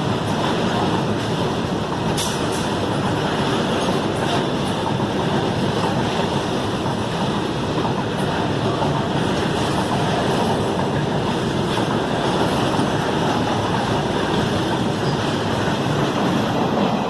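Freight train running on the rails: a steady, loud rumble of wagons and wheels, with a few sharp clicks here and there.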